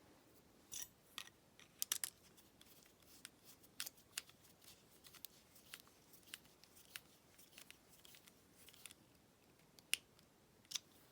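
Faint, irregular clicks and ticks of a small screw being driven with a screwdriver into the body of a Brady 71/40 plastic lockout padlock, with the lock being handled.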